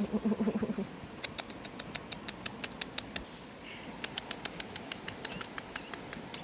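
Baby monkeys sucking milk from a feeding bottle: a quick series of sharp, smacking sucking clicks, several a second, with a break of about a second near the middle. It opens with a brief low pulsing grunt.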